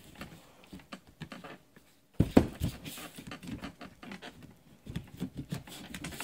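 Plastic clicks and knocks of a laptop being handled while its battery is fitted into the Asus S56C's underside, with one sharper knock about two seconds in.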